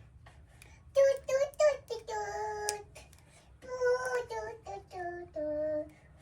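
A child singing in a high voice, in two short phrases with some held notes.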